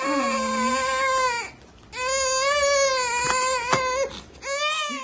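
A baby crying in long, high-pitched wails: one ending about a second and a half in, another of about two seconds after a short breath, and a third starting near the end.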